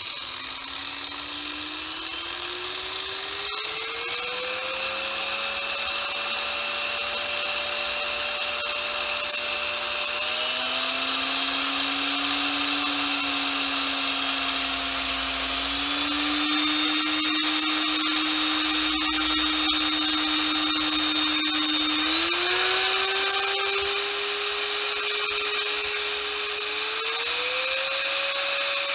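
Corded electric drill's motor running on a plug-in dimmer, its speed stepped up several times as the dimmer knob is turned, the whine climbing in pitch and growing louder.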